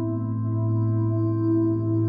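Slow ambient music of long, sustained, overlapping tones.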